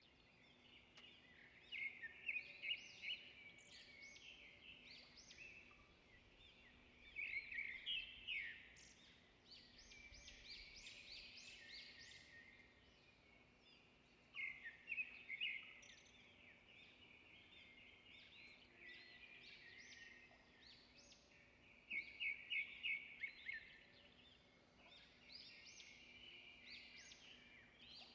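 Faint birdsong: clusters of quick, high chirping notes that come again every five to seven seconds, over a faint steady hum.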